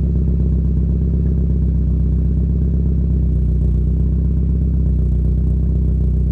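Mazda MX-5 Miata's inline-four idling steadily through an aftermarket cat-back exhaust with a large polished tip, giving a low, even burble with no revving.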